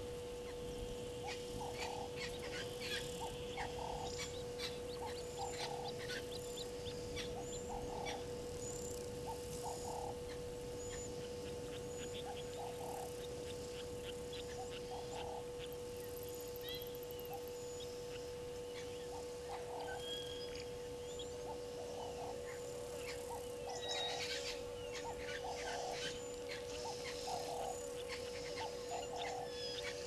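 Bush ambience of animal calls: short low calls repeating every second or two and many scattered high chirps and clicks, over a steady hum.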